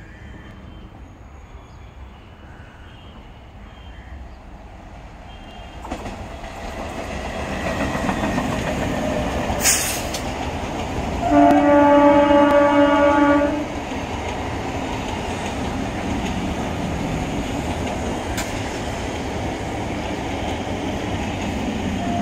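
Indian Railways electric multiple unit local train running past with a steady rumble and wheel clatter on the rails. A little past halfway a train horn sounds one steady blast of about two seconds, the loudest sound. A single sharp click comes just before the horn.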